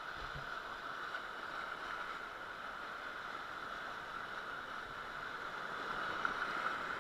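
Steady rush of flowing river water around a raft, an even hiss with no breaks.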